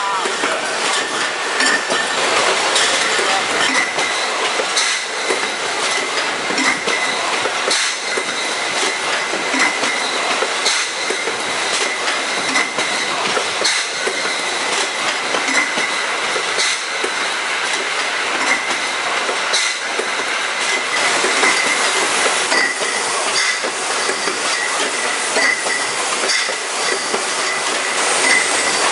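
Climax CR25 robotic bottle case packer running: a continuous mechanical clatter of the conveyors and packing head, with frequent sharp clacks and a steady high whine.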